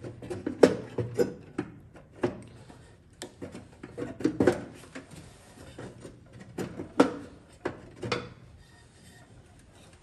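Irregular clicks, knocks and rubbing as a part is handled and pushed into its fitting inside an opened microwave oven's metal chassis, with the sharpest knock about seven seconds in.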